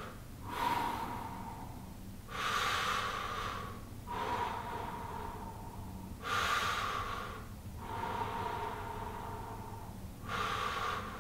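A man taking slow, deep breaths through the mouth: about three full in-and-out breaths, each cycle about four seconds, alternating a softer breath with a louder one.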